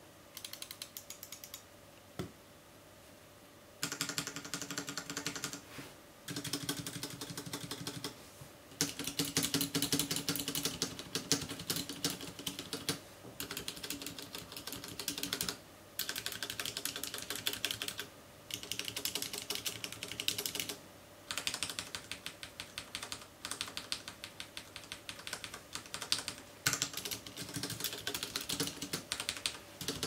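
Typing on a FILCO Majestouch Ninja TKL's Cherry MX Red switches, most of them bare with the keycaps pulled. Rapid clicking comes in runs of a few seconds with short pauses between them. This is the keyboard's unmodded sound, before sound dampening and before its factory stabilisers are lubricated.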